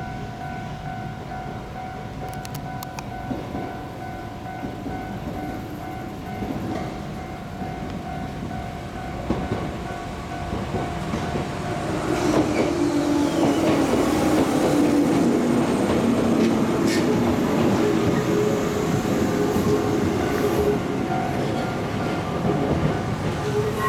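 Shizuoka Railway 1000 series electric train (car 1008) approaching and passing close by, its wheels and running gear getting louder about halfway through. Through the first half a steady ringing tone sounds above the rail noise.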